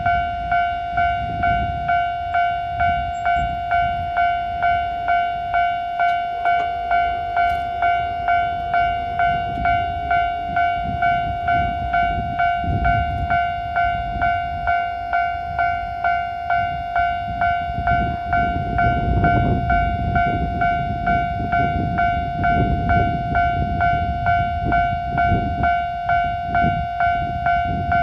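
Japanese railway level-crossing warning bell ringing: a steady electronic ding repeated about one and a half times a second, warning that a train is coming.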